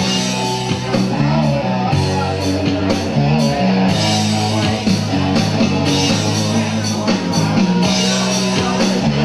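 Rock music from a karaoke backing track, an instrumental stretch with no singing: electric guitar, bass and a steady drum beat.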